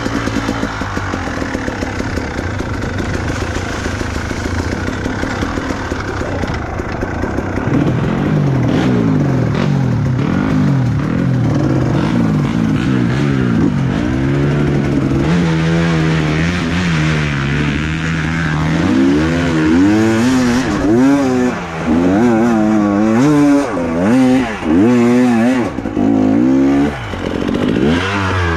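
Dirt bike engine running, steady at first. From about halfway it is revved up and down over and over, its pitch rising and falling about once a second.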